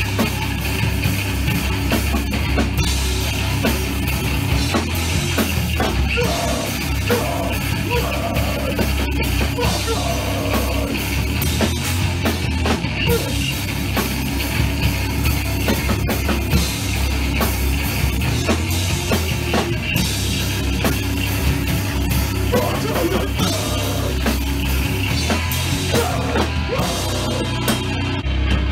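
Live rock band playing loud, heavy rock: electric guitar over a Pearl drum kit.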